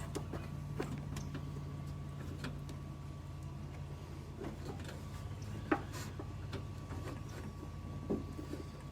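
Scattered light clicks and knocks of spark plug wires and boots being handled and pushed on at the engine, over a steady low hum. One sharper click comes a little under six seconds in.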